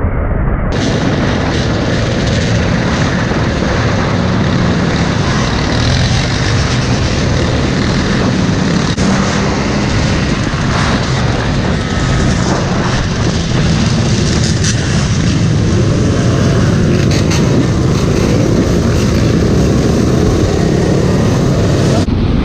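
Many dirt bike and ATV engines running and revving together in a large group ride, heard from one of the moving bikes.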